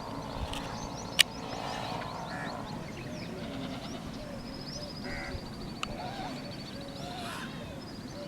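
Several birds calling together. A long, high, slightly falling trill repeats over many short, lower calls and scattered chirps, with a sharp click about a second in and a smaller one later.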